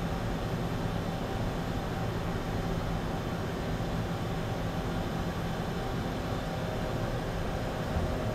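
Mazak Quick Turn 200 CNC lathe running, a steady machine hum and whir with a few held tones.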